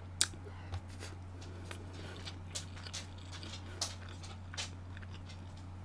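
Close-miked chewing of a mouthful of spicy braised pork rib: scattered soft, wet mouth clicks and smacks at irregular intervals, over a steady low hum.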